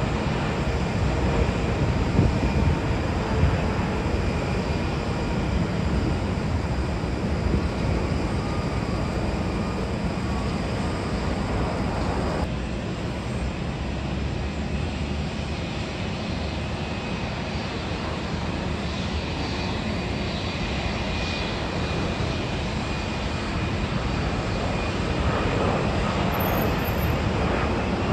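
Jet airliner turbofan engines running steadily on approach and landing, a continuous rumble with a faint steady whine. The sound changes abruptly about twelve seconds in, as one twin-jet widebody gives way to the next, an Air Canada Boeing 787.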